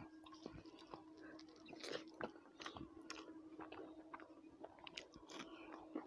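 Faint chewing while eating by hand: a string of soft, short clicks and crunches, with a faint steady hum underneath.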